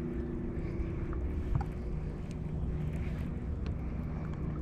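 Boat motor humming steadily, its pitch stepping lower about a second and a half in, over a low rumble and a few faint ticks.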